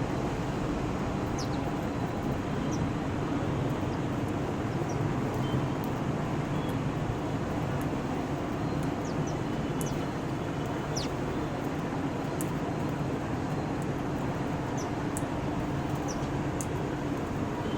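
Steady low rumble of traffic noise, with a few brief, high bird chirps scattered through it.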